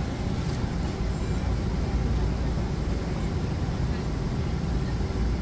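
Steady low rumble of an airliner cabin inside a Boeing 777-200, even and unchanging.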